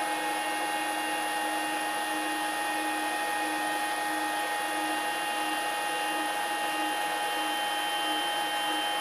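Stepper motor whine as the Z axis of a 6040 CNC router drives the spindle steadily downward: a steady high whine of several fixed tones with a faint pulsing undertone. It stops near the end as the move finishes.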